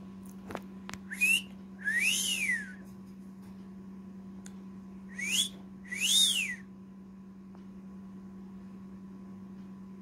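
Cockatiel whistling: a short upward-sliding note followed by a longer note that rises and then falls, given twice about four seconds apart. A steady low hum runs underneath.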